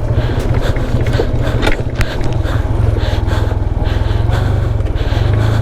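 Motorcycle engine running steadily at low revs, with a sharp knock about two seconds in.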